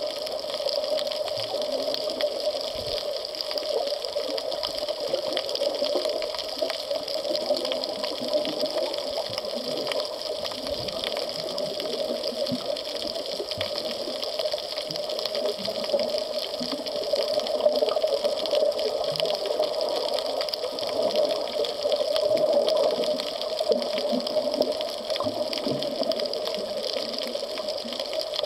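Steady, muffled rushing of water heard through an underwater camera while snorkeling.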